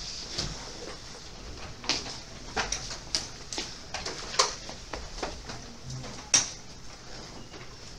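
Classroom room noise: scattered short clicks and knocks at irregular times, with two sharper ones about four and six seconds in.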